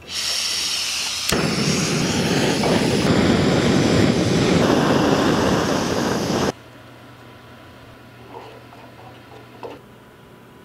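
Backpacking gas canister stove: hissing gas from the opened valve, then lit about a second in and burning with a steady roar, which cuts off suddenly after about six seconds, leaving only quiet background.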